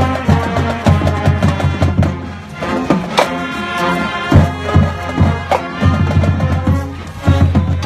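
School band playing a piece: held notes from the band with regular drum and percussion hits.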